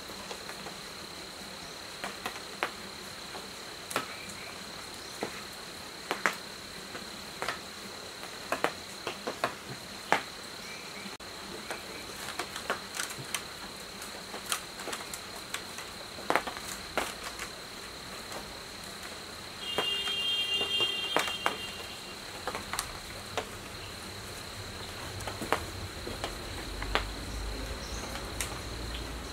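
Irregular light clicks and scrapes of old copper windings being pulled out of an electric motor's stator, over a steady high-pitched insect trill. A brief cluster of high tones sounds about two-thirds of the way through.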